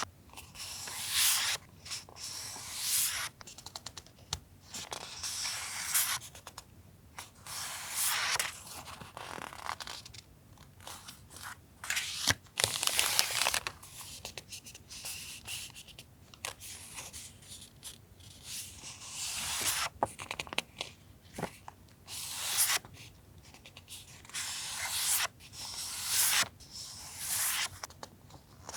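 Paper stationery being handled close up: short rustling, crinkling and tearing-like sounds every second or two, with a longer, louder stretch near the middle.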